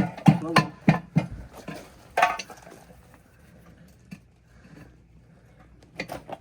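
Hammer blows on metal during tire work, evenly spaced at about three a second with a short ring to each, stopping a little over a second in. One more clattering strike follows about two seconds in, and two more near the end.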